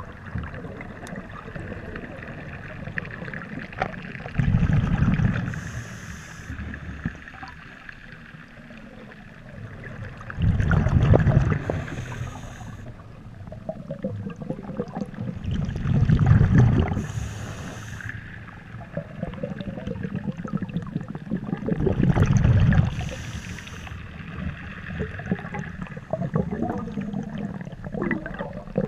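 Scuba diver breathing through a regulator, heard underwater: four rounds of exhaled bubbles rumbling, each about a second long and about six seconds apart, each followed by a short hiss of inhalation.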